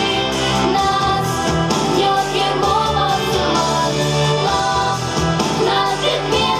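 Pop song with singing over an instrumental accompaniment, with a steady bass line.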